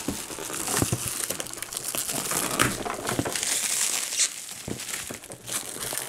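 Black plastic packaging film being pulled, torn and crumpled off a boxed laptop: a continuous crinkling rustle full of sharp crackles.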